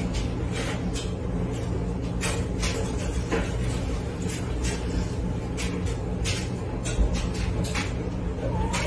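Laundry and household items being handled, giving scattered light clicks and knocks with a sharper knock about seven seconds in, over a steady low hum.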